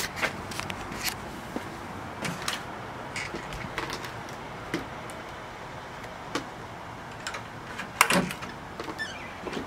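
Irregular footsteps with small knocks and clicks, the loudest cluster about eight seconds in.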